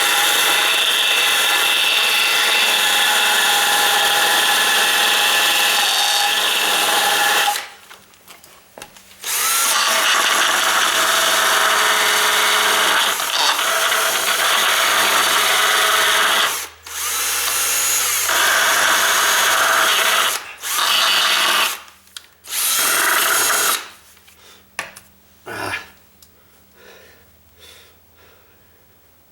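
Electric drill running a filing bit to file down an edge of a crank-out window part. The drill runs in several long stretches, the first about seven seconds and the next about as long, then in a few shorter bursts, and stops about 24 seconds in, leaving light handling clicks.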